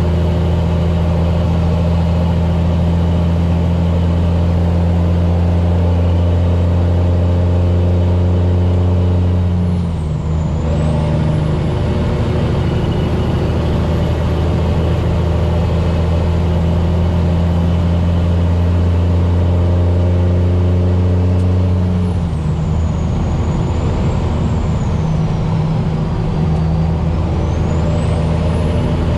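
Cummins ISX inline-six diesel in a cattle truck pulling steadily on the highway. The engine note breaks off twice, about ten seconds in and again about twenty-two seconds in, and picks up again, as on gear changes through the 18-speed transmission.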